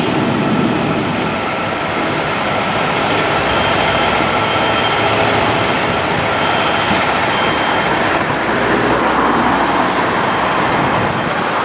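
Fire truck's diesel engine running steadily inside the station bay, a loud continuous rumble, with the sound growing a little brighter over the last few seconds.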